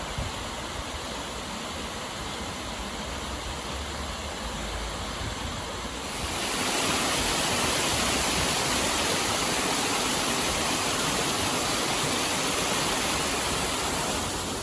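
Waterfall rushing steadily, a dense even hiss of falling water that grows louder about six seconds in.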